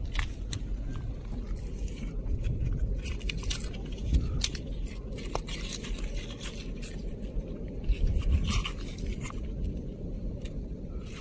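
Crunching and scraping of coral rubble and shell fragments as a gloved hand picks through them and lifts out a broken shell, in scattered short clicks over a steady low rumble.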